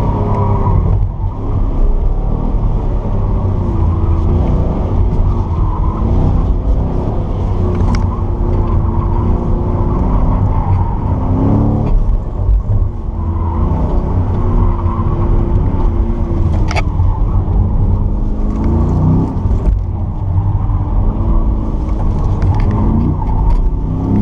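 Chevrolet Camaro SS's V8 engine heard from inside the cabin, driven hard: it climbs in pitch under acceleration four times and drops back between, over a steady low rumble of engine and road noise. Two sharp clicks cut through, about a third and two-thirds of the way in.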